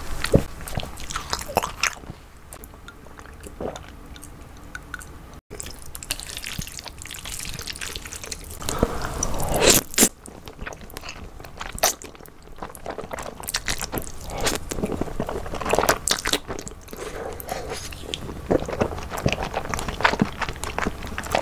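Close-miked ASMR eating: a loud slurp of jjajangmyeon black bean noodles about nine seconds in, with wet chewing, lip smacks and crunching before and after it.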